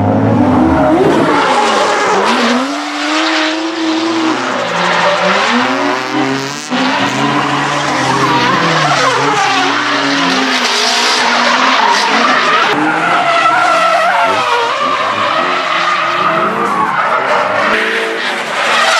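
Drift cars at full throttle: engines revving hard and sweeping up and down in pitch as the drivers work the throttle, over the continuous squeal and hiss of rear tyres skidding sideways through the slides.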